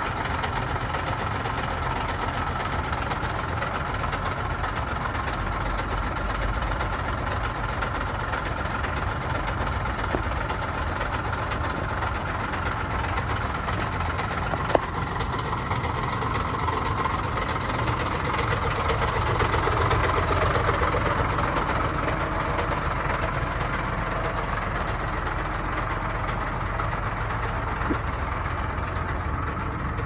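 A large truck's engine idling steadily, with a single sharp click about halfway through and a brief swell in the sound a little later.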